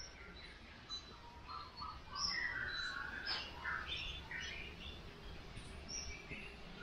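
A baby monkey's high-pitched squeaks and chirps: many short calls that rise and fall in pitch, coming thick and fast from about two seconds in.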